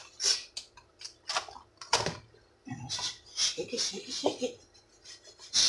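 Lidded plastic food container holding fish pieces and dry fish-fry batter mix being handled and shaken, giving a series of clicks and knocks of the plastic, with a sharp knock about two seconds in and a quicker run of knocking and rustling past the middle as the batter coats the fish.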